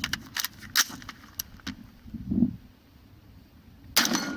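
Light metallic clicking and rattling of gear: a run of sharp ticks in the first two seconds, then one louder sharp knock near the end.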